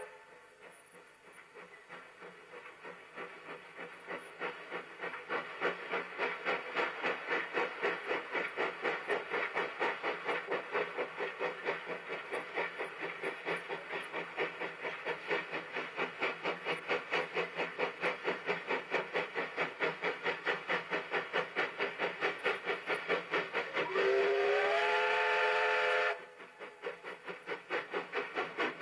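Steam locomotive working hard uphill, its exhaust chuffing at a steady beat of about four a second, faint at first and growing louder as it comes past. Near the end its steam whistle sounds a multi-note chord, sliding up into pitch and held for about two seconds before cutting off sharply.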